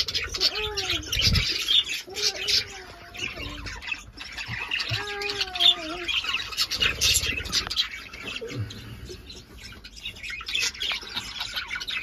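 A flock of budgerigars chattering and chirping continuously in an aviary, a dense mix of high warbles and squawks, with a few lower, drawn-out calls in the first half.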